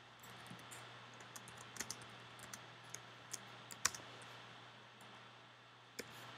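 Faint typing on a computer keyboard: irregular keystrokes for about four seconds, then a pause and a single keystroke near the end.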